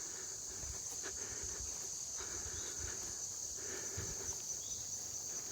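Steady, high-pitched chorus of insects such as crickets, with a few soft footsteps underneath.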